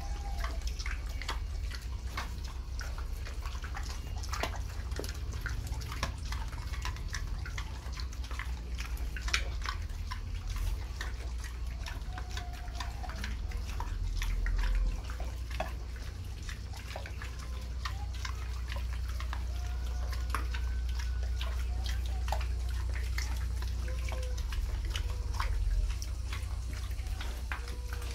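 Black sow and piglets eating from a concrete floor: many wet smacking and chewing clicks, with a few short high squeaks from the piglets. A steady low rumble runs underneath and swells twice.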